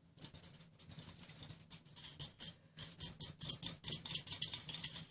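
Steel nuts and washers being spun and rattled along a threaded rod: a rapid, irregular run of small metallic clicks that grows busier and louder over the second half.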